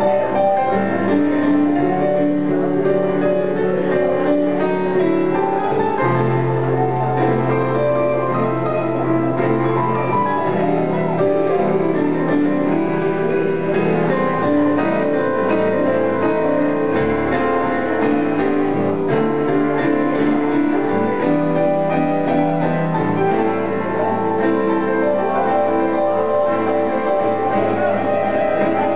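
Electronic keyboard played with a piano sound in a jazz ballad: chords with a melody line over them, at a steady level.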